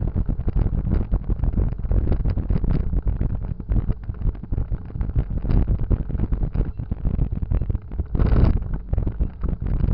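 Wind buffeting the microphone of a motorcycle-mounted camera while riding, a rough, gusty rumble over the vehicle's running noise, with a louder gust about eight seconds in.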